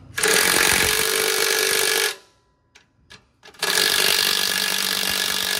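Cordless electric ratchet running in two bursts of about two seconds each with a steady whine, driving the clamp-band bolts tight on an air brake chamber, with a couple of small clicks in the pause between.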